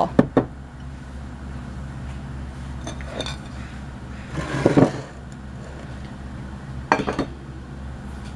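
Kitchenware handled on a wooden cutting board, with a glass baking dish set in place: a few short knocks and clinks, and a longer scrape about halfway through. A steady low hum runs underneath.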